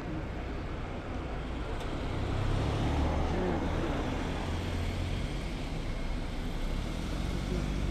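Street traffic: a motor vehicle passes close by, its engine and tyre noise swelling about two to three seconds in and fading away over the next few seconds.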